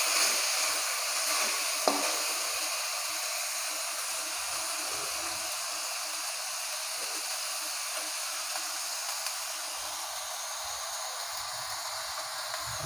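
Balado chili sauce sizzling steadily in a wok around boiled eggs as it cooks down so the spice soaks in. A single spatula knock against the wok comes about two seconds in.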